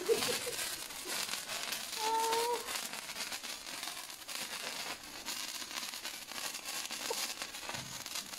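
Handheld wire sparkler burning, fizzing with a continuous fine crackle.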